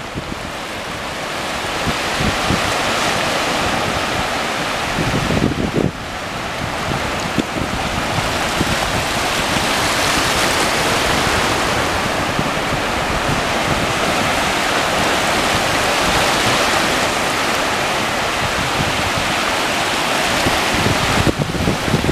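Ocean surf washing in over the shallows: a steady rush of breaking waves that swells and eases, with wind gusting on the microphone.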